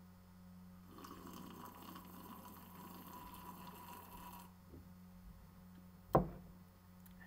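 Drinking from a glass: a few seconds of faint sipping and swallowing, followed by a single sharp knock about six seconds in.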